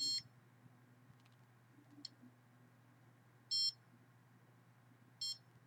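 Electronic RF signal detector giving short, irregular beeps, four in all: one at the start, a faint one about two seconds in, one midway and a brief one near the end. It is going off in separate bursts rather than continuously, which the user takes as the sign of a pulsed microwave signal.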